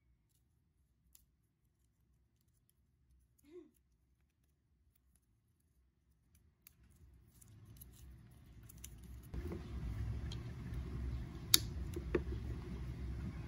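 Near silence at first, then close handling noise of a MacBook's USB-C charge cable being unwrapped from its paper band and the power adapter picked up. The handling is a rising rustle with a few sharp clicks in the second half.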